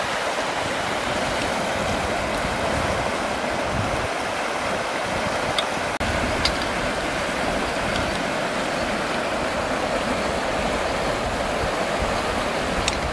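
Fast-flowing muddy river rushing steadily, with a few faint clicks.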